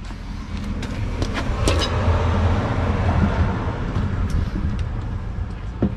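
A motor vehicle passing, its noise swelling and then fading, over a steady low engine hum. A few short metallic clicks come through it, with a louder one near the end.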